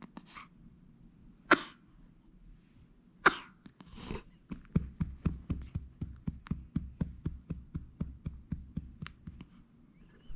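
Newborn baby coughing twice, sharply, after a bout of hiccups, then a fast, even run of soft thumps, about four a second.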